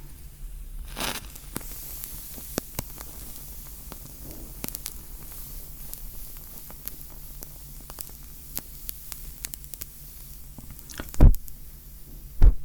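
Close-miked matches being handled: faint crackling, scratching and small clicks over a low hiss, with a short scrape about a second in. Two loud thumps come near the end, the second just before the close.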